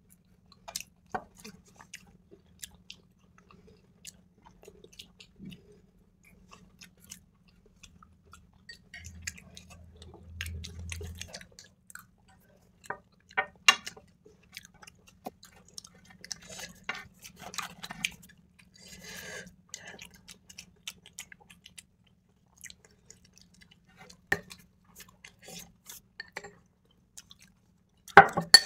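People chewing and eating food, with scattered light clicks of a metal spoon against glass bowls, over a faint steady low hum.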